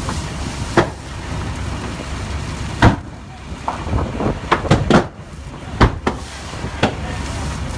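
Wildfire burning at close range: sharp pops and cracks from the burning vegetation and car, several of them bunched around the middle, over a steady low rumble.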